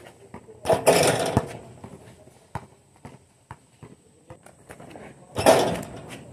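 Basketball hoop's rim and backboard rattling loudly as dunks are thrown down, once about a second in and again near the end. Between them come scattered sharp basketball bounces on the court.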